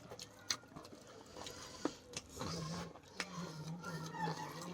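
Eating sounds from a chicken mukbang: scattered short clicks and crunches of chewing and handling food, over a low background murmur, with a faint wavering call or voice near the end.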